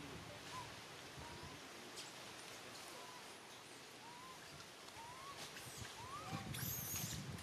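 Quiet outdoor ambience with scattered short, rising chirp-like animal calls. Near the end come a few higher arched calls and a crackle of dry leaves being handled by a baby macaque.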